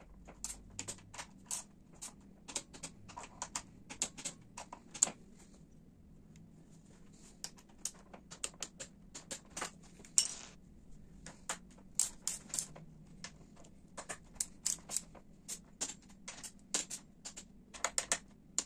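Quick irregular runs of sharp metallic clicks from a wrench tightening the triple clamp bolts and fork cap on a Honda XR250 Tornado's front fork, with a pause of about two seconds a third of the way in.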